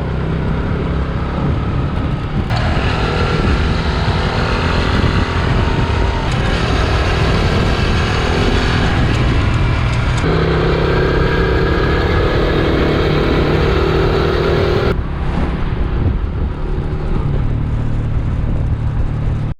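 Honda Super Cub's small single-cylinder four-stroke engine running steadily under way, with road and wind rush. The sound changes abruptly four times, as between spliced riding clips.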